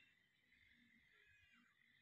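Near silence: faint outdoor background.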